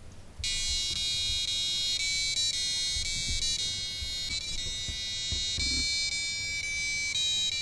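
Small buzzer on a wearable flexible circuit board, driven by an ATtiny85 microchip, playing a programmed tune of thin, buzzy electronic notes that step from pitch to pitch. It starts about half a second in and stops at the very end.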